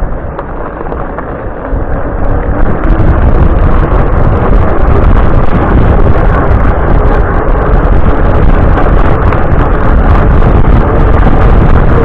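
Wind buffeting the microphone of a camera riding on a moving bicycle, mixed with tyre noise from the track. It grows much louder about two and a half seconds in and then stays loud.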